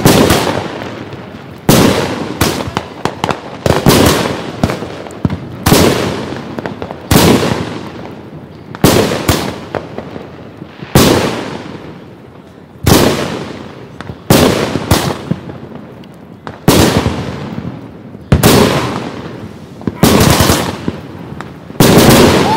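Aerial firework shells bursting overhead one after another, a sharp bang every one to two seconds, with some bangs coming in quick pairs, each trailing off over about a second.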